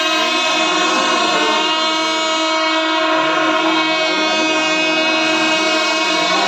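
Kerala temple melam ensemble of chenda drums, ilathalam cymbals and wind instruments playing at full volume: a dense, unbroken wall of sound with steady held tones and wavering melodic lines beneath.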